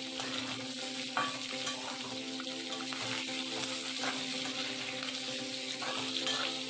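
Sliced onions and green capsicum sizzling in hot oil in a wok as they are stir-fried, with a spatula scraping and tossing them against the pan now and then. A faint steady hum runs underneath.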